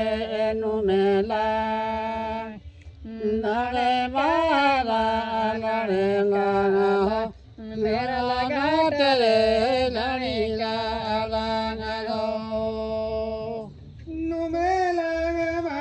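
Voices chanting a Santali Karam worship song in long, gliding sung phrases, with three short breaks between phrases.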